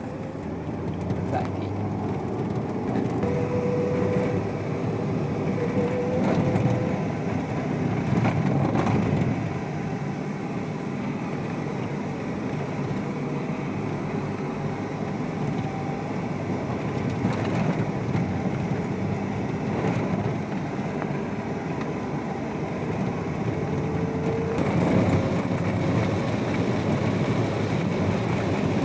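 Steady rain falling, a continuous even rushing noise.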